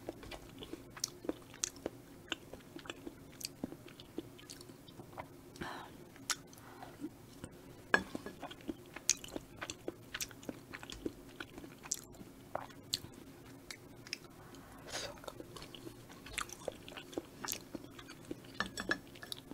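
Close-miked chewing and wet mouth sounds of someone eating rose cream tteokbokki, the chewy rice cakes in a creamy sauce, with small irregular clicks as a wooden skewer picks at the pan and plate. A faint steady hum lies underneath.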